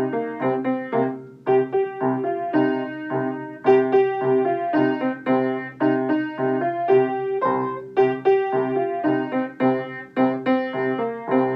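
Piano playing a sing-along accompaniment with no voice over it: a steady run of melody notes over chords.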